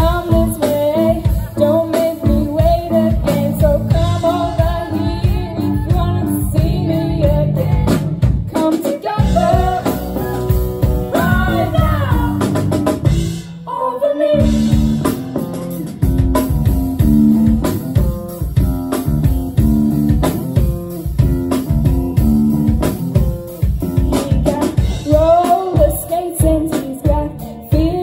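Live rock band playing: female vocals over electric guitar, bass and drum kit, with a short break just before the middle where the band drops out for a moment before coming back in.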